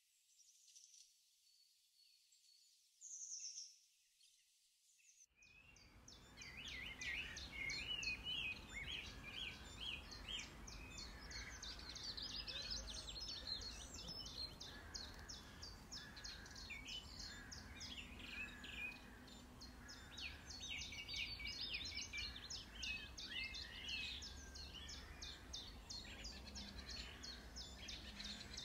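Many small birds chirping and twittering in dense, rapid, overlapping high chirps. The chorus starts suddenly about five seconds in, after a faint opening with only a few high chirps, over a steady low rumble.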